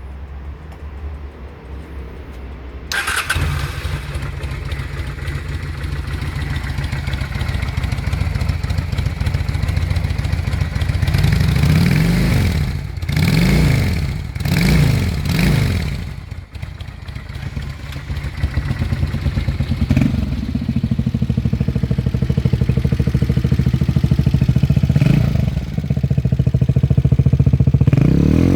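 Motorcycle engine started about three seconds in, then idling with a steady low beat. It is revved in several quick rising-and-falling blips around the middle, drops back to idle, and is revved again near the end.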